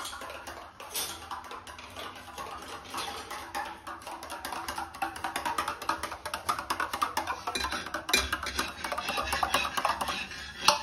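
Background music with a steady, fast percussive beat.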